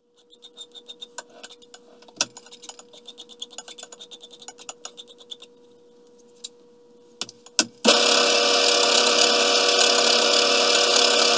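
Hand file rasping in quick, even strokes on a small steel nut held in a stopped lathe chuck, then a couple of clicks, and the vintage Bertram lathe switches on abruptly about two-thirds of the way in, running loud and steady with a file held against the spinning work.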